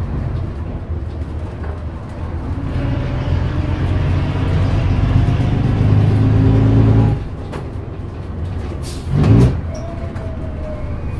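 Leyland O.680 six-cylinder diesel of a Bristol RELL6L single-deck bus, heard from inside the bus, pulling loud and steady under power, then dropping suddenly to a quieter run about seven seconds in. A brief loud burst comes near the end.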